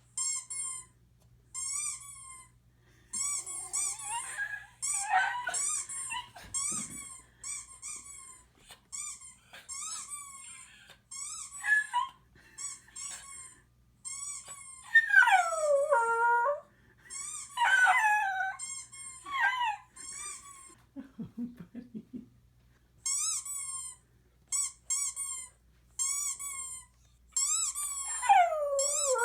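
Recorded squeaky-toy squeaks played back over and over in short quick runs. Between them a dog whines in long falling cries, twice in the middle and again near the end.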